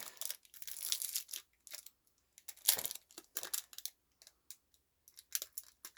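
Candy wrapper crinkling and tearing in irregular bursts as it is peeled off a sticky candy.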